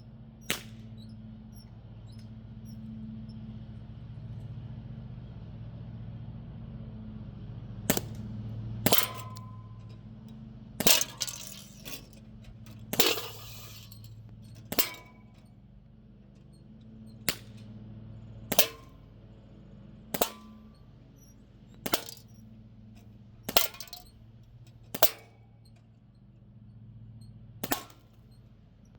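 Crosman Z77 CO2 BB gun firing about a dozen sharp shots, one to three seconds apart, several with a short metallic ring after them, over a steady low hum.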